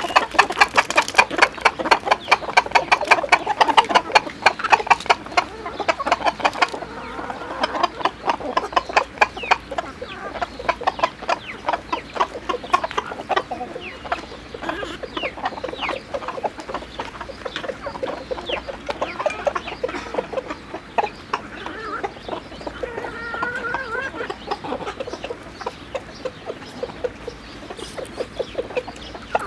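A flock of chickens clucking while they feed, with many rapid sharp taps of pecking, thickest in the first several seconds.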